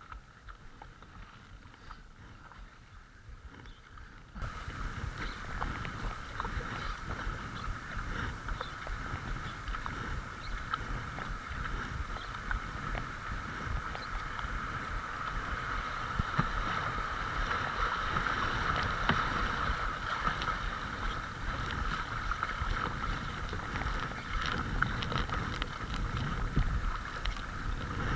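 River water rushing and splashing against a kayak's hull through shallow rapids, with wind buffeting the microphone. It gets markedly louder about four seconds in.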